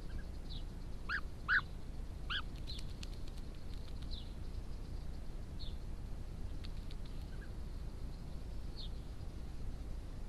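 European bee-eaters giving short calls: a quick cluster in the first couple of seconds, the loudest about a second and a half in, then single calls spaced a few seconds apart. A few faint clicks come around three and seven seconds in, over a steady low background hum.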